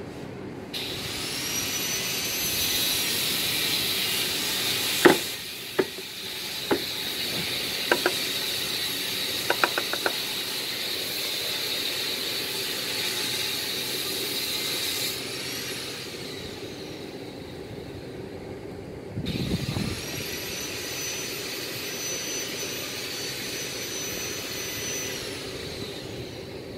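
A high-pitched motorised machine switches on, spins up and runs steadily for about fourteen seconds, then winds down and stops; after a lull of a few seconds it starts again and runs on. Several sharp knocks and clicks sound during the first run.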